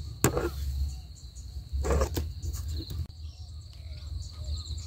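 Leafy plants rustling twice, briefly, as a bunch of freshly picked wild betel leaves (cha plu) is handled among the weeds, over a steady high insect buzz.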